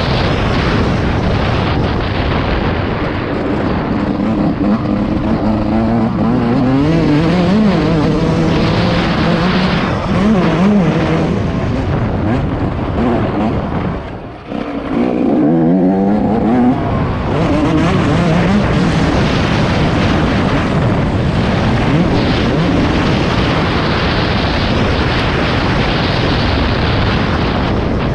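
Yamaha YZ144 two-stroke motocross bike's engine revving hard, its pitch rising and falling again and again as the rider works the throttle. About halfway through the throttle shuts off briefly, then the engine picks up again.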